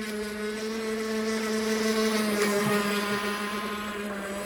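Pro Boat Recoil 2 RC boat's brushless electric motor and propeller running, a steady whine on the water that grows louder toward the middle and eases off near the end as the boat passes. The boat is running below full speed.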